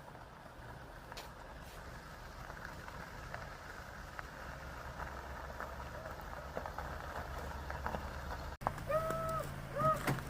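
A vehicle running with a steady low hum that slowly grows louder. It breaks off abruptly about eight and a half seconds in, and then a run of short, high, rising-and-falling whines sounds over a low steady hum.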